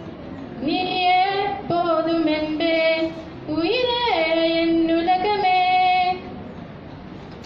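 A girl singing solo and unaccompanied into a handheld microphone, holding long notes with short breaths between phrases. The song stops about six seconds in.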